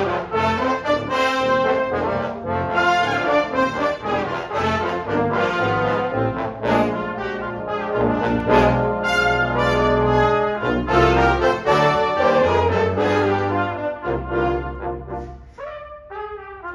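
Brass ensemble of trumpets, French horn, trombones and tuba playing together, the tuba holding a low line under the higher parts. Near the end the playing quietens and thins to a few short separate chords.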